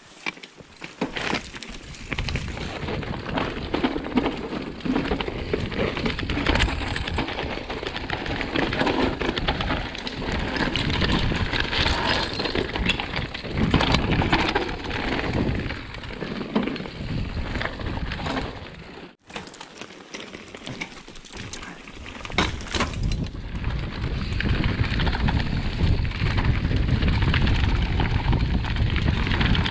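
Mountain bike descending a leaf-covered dirt trail: tyres crackling over leaf litter, with constant rattles and knocks from the bike over bumps. The sound drops out for a moment about two-thirds of the way through, then the rolling noise comes back.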